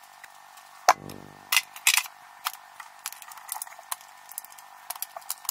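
Valve cover being set down onto a Datsun L-series cylinder head and shifted into place: one loud metal clank about a second in with a short ring, then a scatter of lighter clicks and taps.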